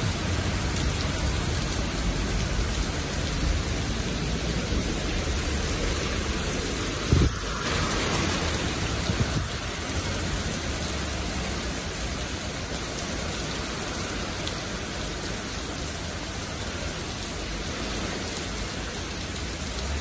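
Heavy downpour: a steady hiss of rain falling on the street and cars, with a brief low thump about seven seconds in.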